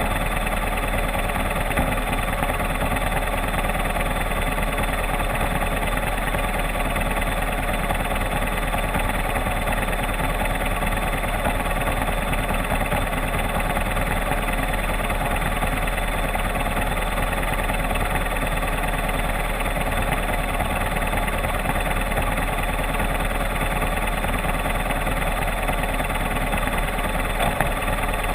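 Enduro motorcycle engine running steadily, its pitch and level hardly changing.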